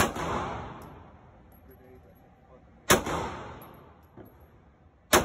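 Pistol shots in an indoor range: three single shots, one at the start, one about three seconds in and one near the end, each a sharp crack followed by a long echoing tail off the range walls.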